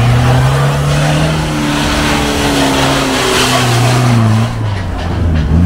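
Off-road 4x4's engine running hard under load. Its pitch wavers, drops about four and a half seconds in, then climbs again near the end, over a rushing hiss.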